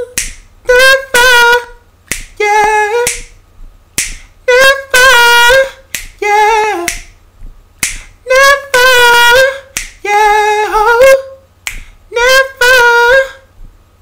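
A man singing wordless a cappella vocal lines in short phrases of high held and sliding notes, with finger snaps keeping time between and under them.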